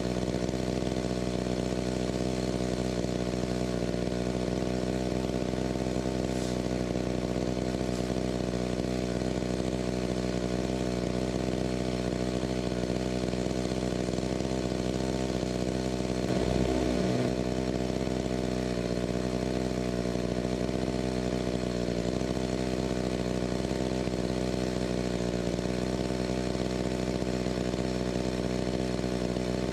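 Chainsaw running at a steady, even speed, with a brief blip where the pitch dips about sixteen seconds in.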